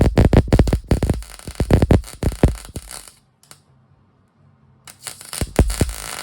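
Background electronic music with a driving beat, dropping out for about a second and a half in the middle.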